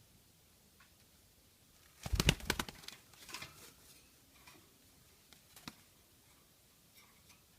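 A dove's wings flapping in one quick, loud flurry about two seconds in, followed by scattered light taps and scratches.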